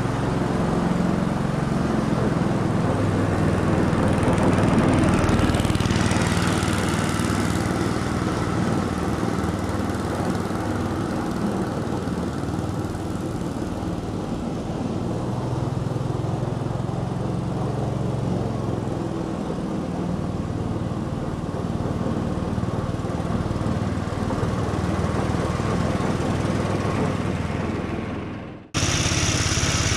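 Ransomes Marquis cylinder lawn mower's petrol engine running steadily under load while mowing. Near the end the sound dies away and then cuts back in abruptly.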